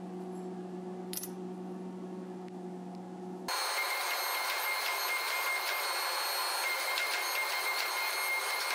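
A steady low electrical hum, then a sudden change about three and a half seconds in to a hydraulic forging press running as it squeezes a glowing canister damascus billet: a steady hissing noise with a thin high whine.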